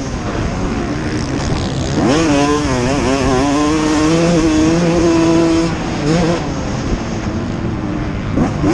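Motocross bike engine under race throttle: the revs climb sharply about two seconds in, hold high, drop off around six seconds and climb again near the end, over rushing wind noise.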